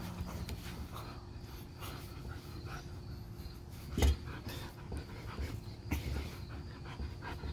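Dog panting hard while it tugs on a rope toy, with one loud thump about four seconds in.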